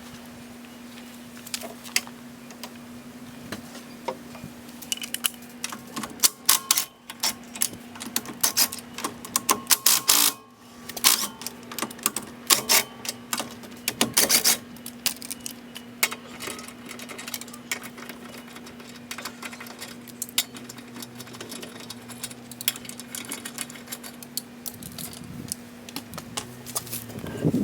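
Metal hand tools clicking and clattering against wheel hardware while a wheel is being taken off, in quick irregular runs that are busiest in the middle, over a steady low hum.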